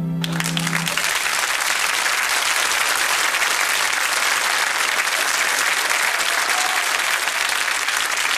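Audience applauding at the end of a song, breaking out just as the song's held final note dies away about a second in.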